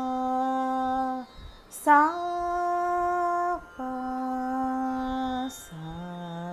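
A woman's voice singing long, steady held notes on an open vowel, with short breaks between them. First a middle note, then a higher one that begins sharply about two seconds in, then the middle note again, and near the end a lower one.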